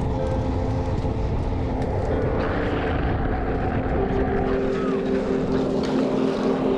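Downhill skateboard at speed: wind rushing over the helmet camera and urethane wheels rolling on asphalt with a steady hum, growing a little stronger about four seconds in.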